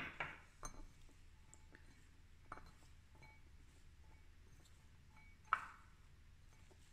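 A glass mixing bowl clinking and knocking a few times as sliced onions are mixed in it by hand. A cluster of sharp clinks comes at the start, a lighter one about two and a half seconds in, and the loudest about five and a half seconds in.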